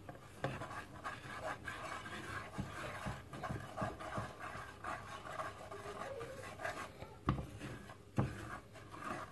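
Silicone spatula stirring and scraping dry semolina, milk powder and coconut as they toast in a nonstick frying pan: a soft, irregular scratchy rustle, with two light knocks near the end.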